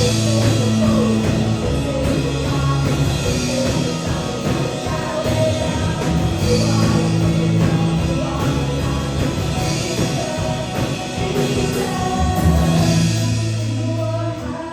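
Rock-style band music with singing: a steady bass line that changes note every second or so under the voices, with recurring cymbal swells.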